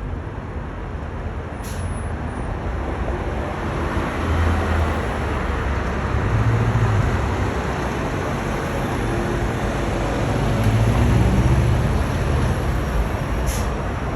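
Steady road traffic on a busy city street, with several vehicles passing as slow swells of low rumble.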